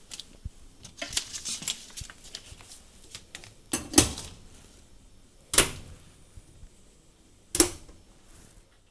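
Oven and grill doors of an AGA Elise 48 range cooker being opened and shut: a run of light clicks and knocks, then three sharp bangs about two seconds apart as the doors close.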